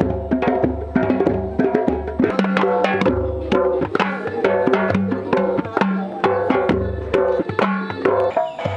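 Background music with a steady, fast percussion beat of sharp, wood-block-like hits over bass and pitched notes; near the end it gives way to a strummed-guitar passage.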